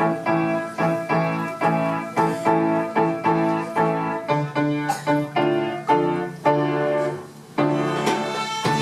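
A children's string ensemble piece starts suddenly, with a run of short, sharply begun notes, about three a second, each dying away; this fits plucked pizzicato strings. From about seven and a half seconds in, longer held notes follow, as in a bowed passage.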